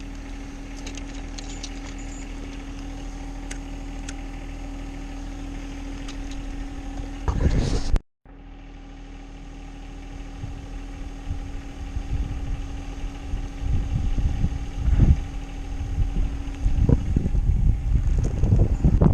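An engine idling steadily, a constant hum. A loud burst comes about seven seconds in, then a brief total dropout of the sound, and after that irregular low rumbles, like wind or handling on the microphone, build toward the end.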